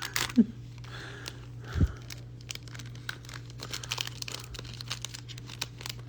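Crinkling of a Pokémon card booster pack's foil wrapper as packs are handled and opened: a run of small crackles and rustles over a steady low hum.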